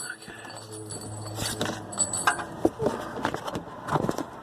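Scattered metallic clinks and clicks of hand tools being handled: a ratchet, socket and extension knocking together, at irregular intervals.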